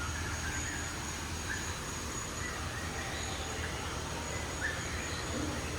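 Aviary ambience: a steady low hum under an even background hiss, with a few faint, short bird chirps scattered through it.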